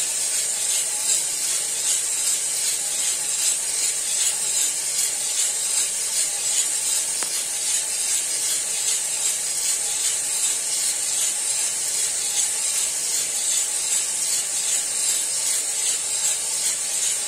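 Cormorant CR600 electric coffee roaster running early in the roast, before the turning point: green coffee beans rattling steadily in the turning drum over the steady hiss of its fan.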